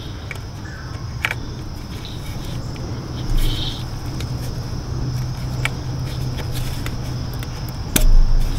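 Plastic electrical plug being worked onto a car's evap purge valve, with a few sharp clicks and a louder knock near the end, over a steady low hum.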